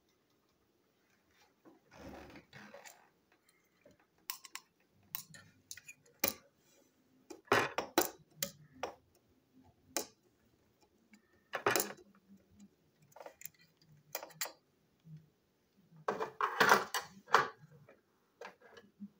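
Scattered sharp clicks and taps of hard plastic toy-train parts and a metal screwdriver being handled on a tabletop while a small screw is worked out of a plastic chassis. The louder clatters come in short clusters about a third of the way in, near the middle and near the end.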